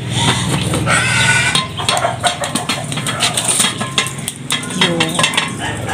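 Clatter and clinks of an aluminium cooking pot and its lid being handled, with many short knocks over a steady low hum.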